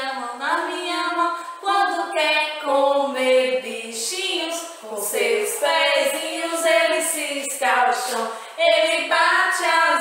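Two women singing a children's song together, unaccompanied, in long held and gliding notes.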